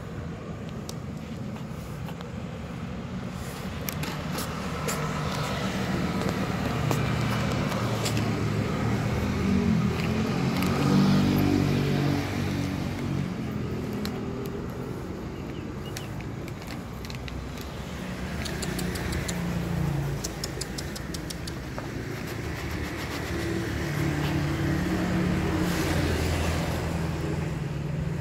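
Passing road traffic: motor vehicle engines swelling and fading as they go by, loudest about a third of the way in and again near the end, over a steady background of street noise.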